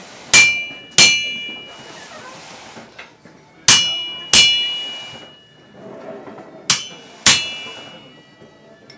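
Blacksmith's hand hammer striking iron held in tongs on an anvil, with a bright metallic ring after each blow. Six blows come in three pairs, the pairs about three seconds apart.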